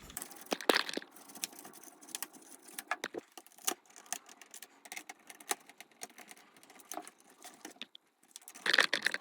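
Hands working on the plastic parts of an opened laptop: scattered clicks, taps and small scrapes, with a louder rustling scrape near the end.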